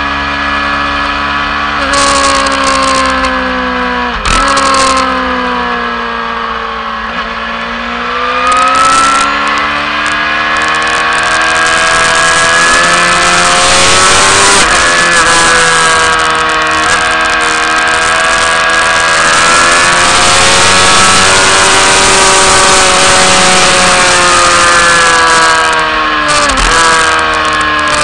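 Motorcycle engine at track speed heard from an onboard camera, its pitch rising and falling with throttle through the corners, with quick dips as gears change about four seconds in and near the end. Wind rush over the microphone grows loud through the middle.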